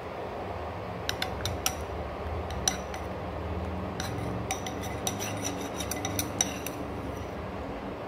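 A spoon stirring pomegranate juice in a glass bowl, knocking against the glass in scattered clicks and clinks, thickest in the second half, over a steady low background hum.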